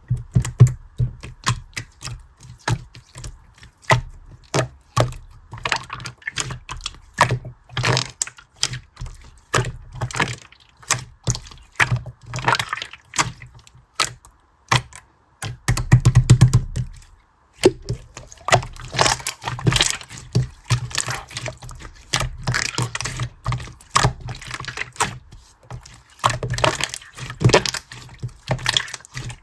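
A long run of quick, irregular clicks and taps, with a heavier low thump about halfway through.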